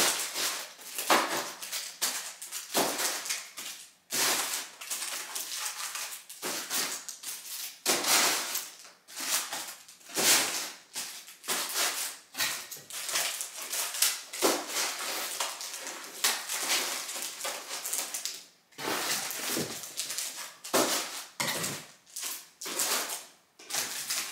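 Plastic-wrapped packs of small cardboard eyelash boxes rustling and clacking as they are handled and stacked into a suitcase, in quick irregular bursts.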